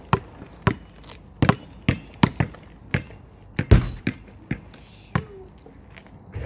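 A ball bouncing on asphalt as it is dribbled: a string of sharp, separate bounces at an uneven pace, with one heavier, deeper thud about three and a half seconds in.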